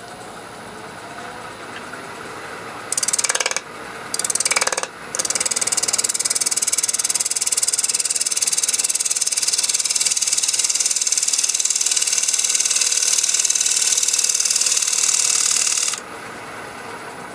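Wood lathe running, then a turning tool cutting the bottom of a spinning poplar piece: two short cuts, then one long continuous cut of about eleven seconds that stops suddenly near the end. The cut takes off a hardened drip of super glue on the bottom.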